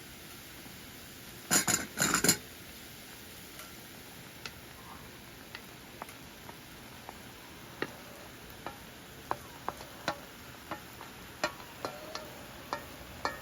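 Cookware and utensils clattering during camp cooking: a couple of louder clattering bursts about a second and a half in, then scattered light clinks and taps.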